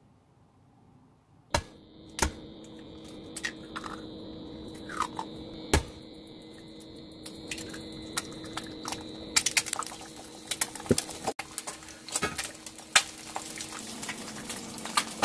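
Egg frying in oil in a nonstick pan: sharp taps and clicks over a steady sizzle, which turns into dense crackling and spattering about nine seconds in, after a second egg is cracked into the pan.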